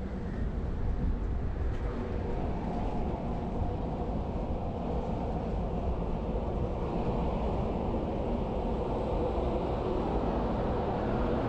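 Steady low rumble and hum of a moored destroyer's machinery and ventilation fans, growing a little fuller in the second half.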